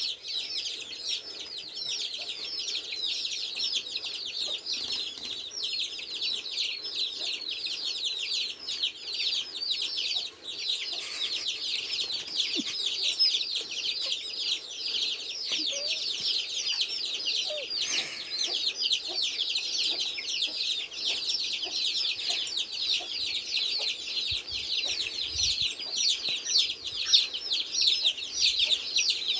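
Free-range chicks peeping nonstop: a dense chorus of high, quick, downward-sliding peeps.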